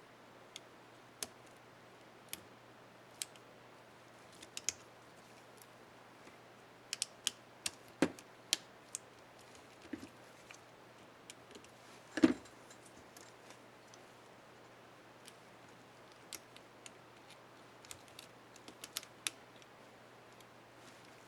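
Small plastic clicks from a laptop keyboard's Enter keycap and its retainer clips being worked and fitted onto an Acer Aspire One 725 keyboard. The clicks are sparse and irregular, with one louder click about twelve seconds in.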